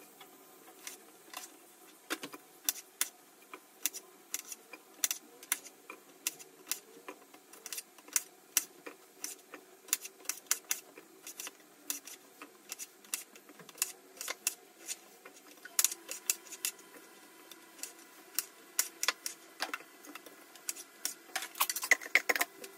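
Light, irregular clicks and taps from kitchen work, roughly two or three a second, over a faint steady hum.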